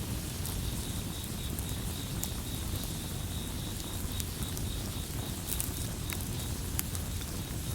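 Campfire burning with a steady low rumble and scattered sharp crackles and pops, over crickets chirping in a fast, even pulse.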